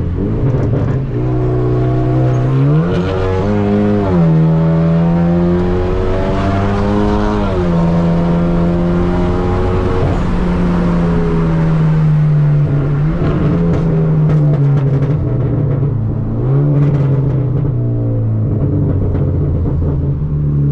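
Straight-piped turbocharged Hyundai Genesis Coupe's engine and exhaust accelerating hard, the pitch climbing and dropping back at each upshift, about three, four and seven and a half seconds in. The note then holds and slowly eases, with one more short climb about seventeen seconds in.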